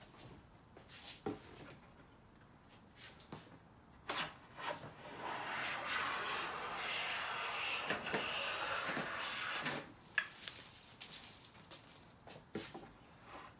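Siegley StS #7 bench plane taking one long stroke along a straight-grained pine board: a steady shearing hiss of the iron peeling a shaving, starting about four seconds in and lasting about six seconds, with a knock as the plane lands and another as it lifts off. Light clicks and rustles of handling before and after the stroke.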